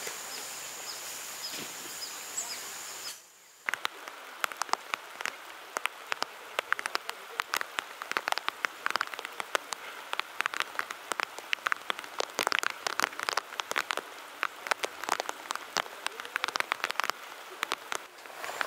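A steady high insect drone for about three seconds, then it cuts off and rain begins: many drops ticking sharply and irregularly, likely on the flysheet being put up.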